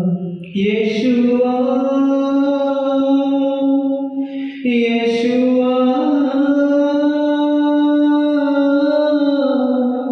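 A man singing a Hindi Christian worship song solo into a microphone, drawing out two long sustained lines of about four and five seconds, each beginning with a brief hissing consonant.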